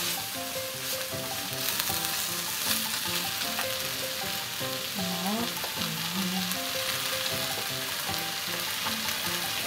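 Pieces of meat sizzling in hot olive oil in a deep pot, stir-fried as they brown, with a steady crackling hiss.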